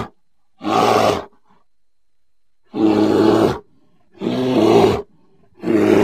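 Grizzly bear growling: four short, deep growls, each under a second, with brief pauses between them.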